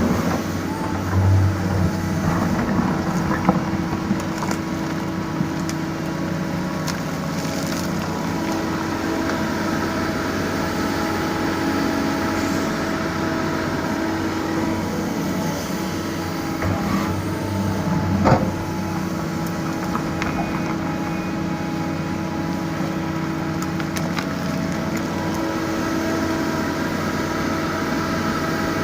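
Doosan DX225LCA excavator's diesel engine running steadily, with its note shifting a few times and occasional knocks, the loudest about eighteen seconds in.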